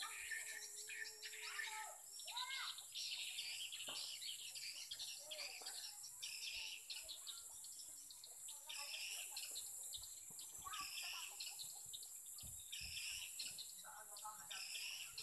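Swiftlets chirping and twittering densely, the call sound broadcast from a swiftlet house to lure edible-nest swiftlets, over a steady high-pitched hiss.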